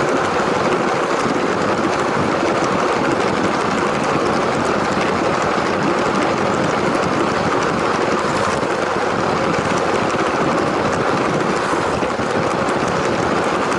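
A LEGO train's electric motor and plastic wheels running steadily along the track, a continuous whirring rumble with no pauses.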